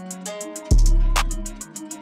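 Background music: a beat with a deep bass hit that fades slowly, a sharp snare hit and quick, regular hi-hat ticks, over sustained melodic notes.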